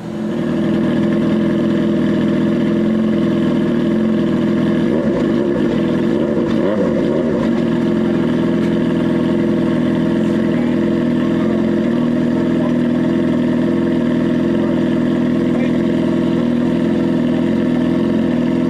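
Sport motorcycle engine starting up and then idling steadily, loud and close, its pitch wavering briefly about five seconds in.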